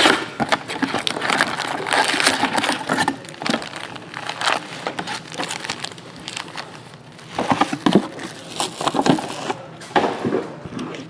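Foil trading-card packs crinkling and rustling as they are lifted out of a cardboard box and stacked, with irregular crackles and light taps.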